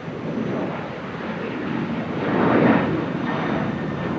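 Jet airliner's engines: a rushing noise that swells to its loudest about two and a half seconds in, then eases off.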